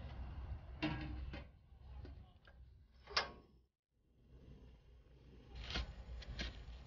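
A few clinks and knocks of a plate and cookware being handled in a kitchen, over a low steady hum, as the egg-covered crab goes into the steamer.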